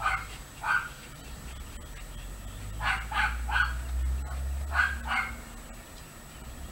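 Dog giving about seven short yips and barks in quick groups while lying on its back being petted: two near the start, three close together about three seconds in, and two more about five seconds in.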